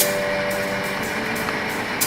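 Background music with held chords that change about once a second and a light regular tick, over a steady rushing noise.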